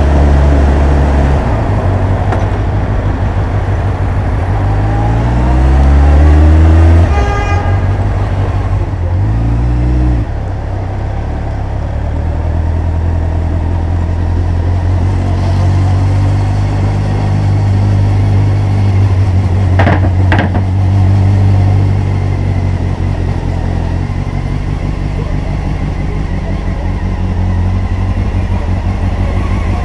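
Honda CBF motorcycle engine on the move, revving up with a rising pitch a few seconds in and again briefly about ten seconds in, then running steadily at low speed.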